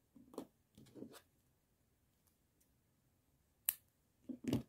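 Faint handling of a crocheted yarn bag: a few soft brief rubs, one sharp click a little before the end, then two more short handling sounds.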